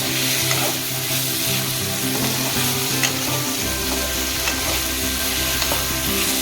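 Chopped onion and tomato frying in oil in a kadai, sizzling steadily as they are stirred with a spatula, with a few small clicks of the spatula against the pan.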